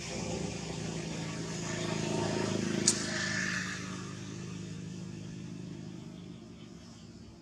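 Motor vehicle engine passing in the background, a low hum that grows louder to a peak a few seconds in and then fades away, with one sharp click about three seconds in.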